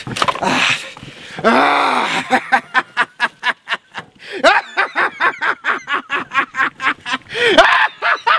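A man's loud, rapid laughter at about five laughs a second, opening with a long drawn-out cry and rising to a louder peal near the end.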